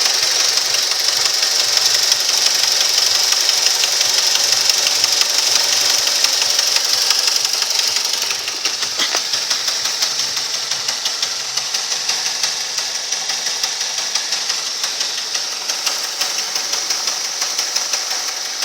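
2006 Mazda 6 engine running with a rapid, steady knock whose cause the owner cannot identify. It gets a little quieter about eight seconds in.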